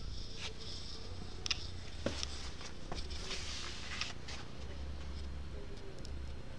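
Handling noise from a handheld camera carried through a shop: a steady low rumble with scattered light clicks and short rustles.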